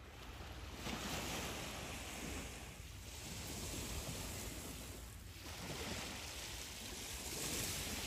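Small waves washing onto a sandy shore, the wash rising and falling every couple of seconds, with a low rumble of wind on the microphone.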